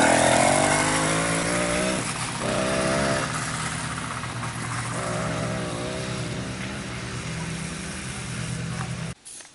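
80cc two-stroke bicycle engine kit running on a motorized bicycle being ridden, its pitch rising and falling several times with the throttle and the sound growing fainter. It cuts off abruptly near the end.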